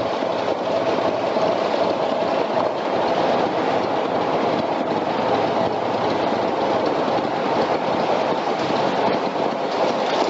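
Steady, loud rumbling noise of a narrowboat under way inside a brick canal tunnel, echoing off the walls, with a faint steady tone in the first few seconds.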